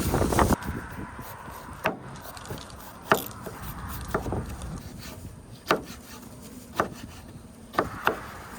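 A series of irregular sharp knocks, about eight of them roughly a second apart, over a low steady outdoor background, with a brief rush of wind noise at the very start.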